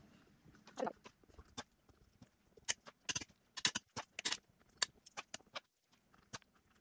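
Stuffed bell peppers being packed into a cooking pot: a series of short, irregular light knocks and clicks, busiest in the middle.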